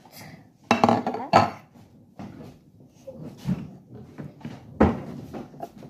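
Dishes and kitchen utensils clattering as they are handled on a counter, with a cluster of loud clinks about a second in and one sharp knock near the end.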